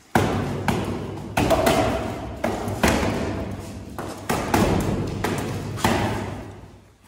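Punches landing on an old small punching bag hung under a round board on a wall: about eight heavy thuds at an uneven pace, each ringing out in a long echo of the bare room.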